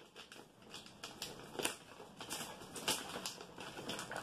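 Packaging being handled by hand: irregular crinkling and rustling with scattered sharp clicks, several a second.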